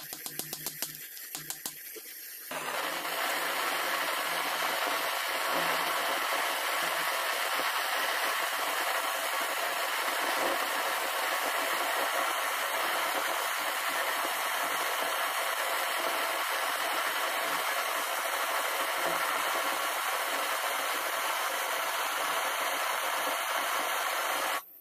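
A run of sharp clicks, then a loud, steady hiss that starts abruptly about two and a half seconds in and stops sharply near the end.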